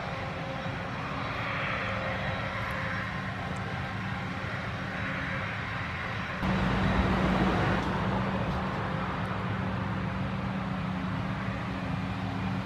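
John Deere 7350 self-propelled forage harvester chopping grass for silage, its engine and cutterhead making a steady drone, with the John Deere 8310R tractor pulling the silage trailer alongside. The sound steps up abruptly about six and a half seconds in.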